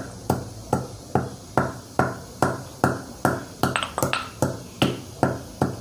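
Stone pestle pounding black peppercorns in a stone mortar (ural): steady, even strikes, about two and a half a second.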